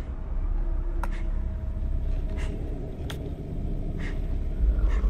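Steady low rumble with a faint steady hum over it, broken by a few sharp clicks; the two loudest clicks come about a second in and about three seconds in.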